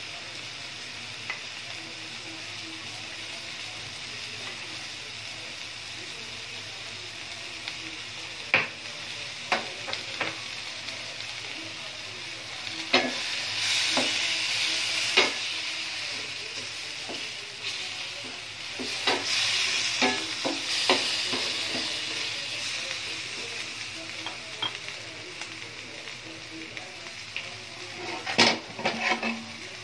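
Chicken pieces with pineapple and onion sizzling in a stainless steel frying pan. A wooden spatula stirs them, knocking and scraping against the pan several times, and the sizzle grows louder while the food is turned.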